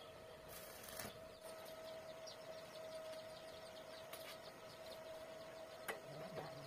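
Chicks peeping faintly in many quick, short chirps, over a steady thin tone, with a few brief clicks as metal rods are handled.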